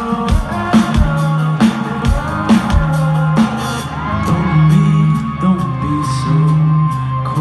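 Live rock band playing through a loud outdoor PA: a kick drum hitting about every two-thirds of a second with bass and guitar, then the beat thinning out a little after halfway into held chords.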